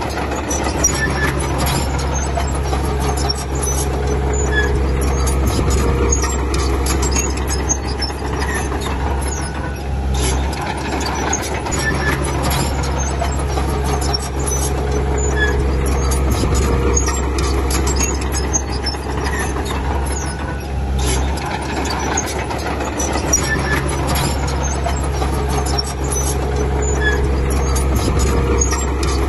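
Diesel engine of heavy earthmoving machinery running steadily, with small squeaks and clatter over it. The sound swells and eases in the same pattern about every eleven seconds.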